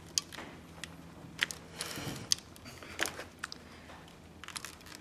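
Handling noise from working a canvas print on a stretcher frame: soft rustling with a few scattered sharp clicks and taps.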